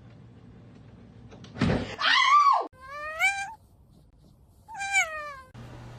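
Domestic cat meowing three times, the first call the loudest and longest, just after a thump about a second and a half in.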